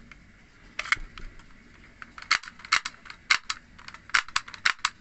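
Plastic toy Glock pistol being handled and worked, giving a string of sharp clicks, about nine of them, some in quick pairs, from about a second in.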